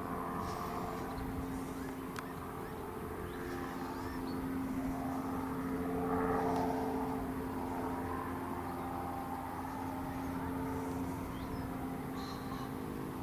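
A vehicle engine droning steadily at a constant pitch, swelling slightly about halfway through, with faint bird chirps.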